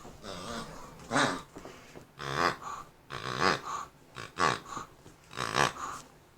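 A series of about six short, pitched, animal-like calls, roughly one a second, each bending in pitch.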